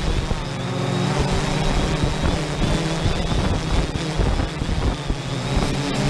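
3DR Solo quadcopter's motors and propellers humming steadily in flight, with wind buffeting the onboard microphone as a gusty low rumble.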